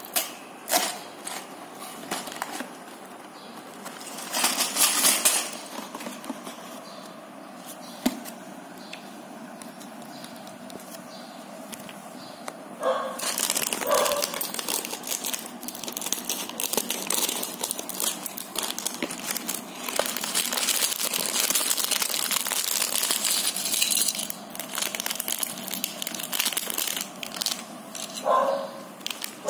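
Packaging being opened by hand: scattered clicks and a short crinkly burst at first, then from about halfway a long stretch of plastic bag crinkling, with clicks of small plastic building bricks being spilled and handled.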